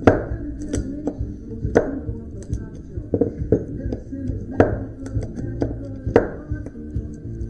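Background music, with sharp metallic knocks and clicks every second or so as hand tools pry copper windings out of an electric motor stator.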